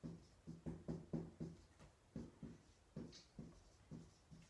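A felt-tip whiteboard marker writing on a whiteboard in quick, short strokes, about three a second, faint.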